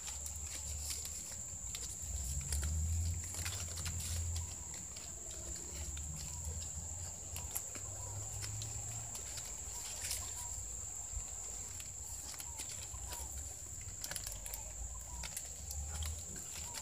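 Green coconut palm frond strips rustling and crackling in the hands as they are woven together, with many small scattered clicks. Under it run a steady high whine, a low rumble and faint bird calls.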